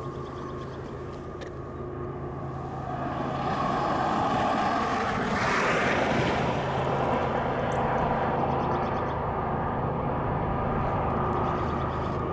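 Diesel locomotive of an approaching intermodal freight train running: a steady low engine drone that grows louder a few seconds in, with a rushing noise swelling briefly around the middle.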